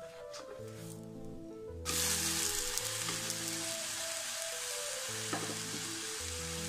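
Vegetable uthappam frying in oil in a pan, a steady sizzle that jumps up suddenly about two seconds in. Soft background music with held notes plays underneath.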